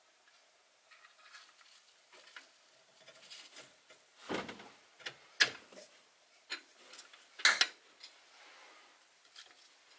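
A wrench on the serpentine belt tensioner bolt of a Toyota 3.5 V6, clinking and tapping against metal while the tensioner is released: scattered small metallic clicks, the loudest about four and a half, five and a half and seven and a half seconds in.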